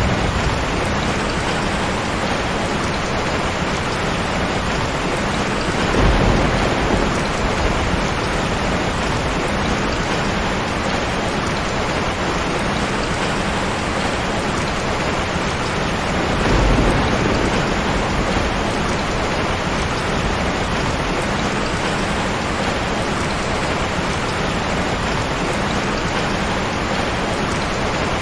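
Heavy rain falling steadily, with two low rumbles of thunder, one about six seconds in and another about seventeen seconds in.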